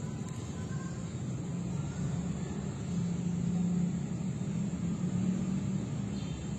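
Steady low engine hum of a motor vehicle, growing a little louder from about three seconds in.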